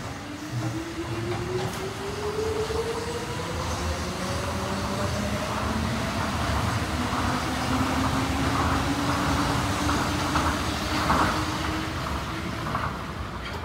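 Tokyo Monorail train pulling out of the platform and accelerating past, over a steady running rumble. Its traction motors give two slowly rising whines one after the other: the first climbs through the first half, and a lower one follows until near the end. The sound is loudest as the cars pass, about two-thirds of the way in.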